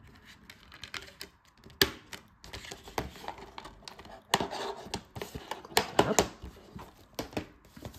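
Plastic clicks and taps from a clear Blu-ray case being handled: the disc pressed onto its centre hub, then the case closed and set down on a desk, with a cluster of sharper clicks about four to six seconds in.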